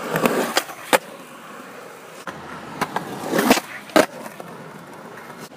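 Skateboard wheels rolling over concrete, rumbling near the start and again around three and a half seconds in, with sharp clacks of the board, the clearest about a second in and at four seconds.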